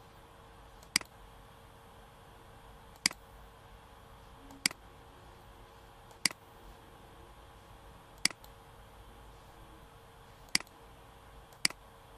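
Computer mouse button clicking, seven single sharp clicks at uneven gaps of one to two seconds, over a faint steady hum.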